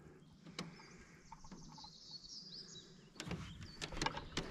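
A bird singing faintly in short, high, bending notes, then a quick run of light knocks and clicks about three seconds in.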